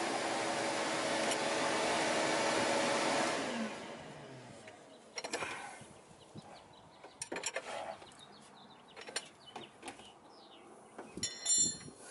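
Vacuum running steadily, pulling vacuum on the engine so the oil stays in while the drain plug is out; it winds down and stops about three and a half seconds in. After that come light wrench clicks at the oil pan and a bright metallic clink near the end.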